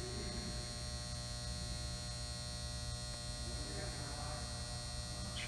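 Steady electrical buzzing hum filling a large empty indoor arena.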